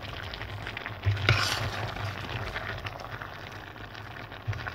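Metal ladle stirring braised tofu and pork belly in a stainless steel pot, scraping and clinking against the pot over a soft sizzle, with one louder knock about a second in.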